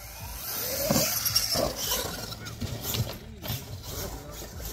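Radio-controlled monster truck running on a dirt freestyle course: its motor revs rise and fall, with tyres scrabbling on dirt and a few sharp knocks as it bounces and lands.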